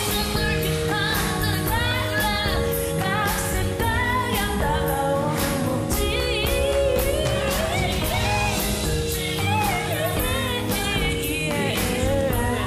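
A woman singing a Korean song live, her voice wavering with vibrato, over a band with drums, cymbal hits and steady bass notes.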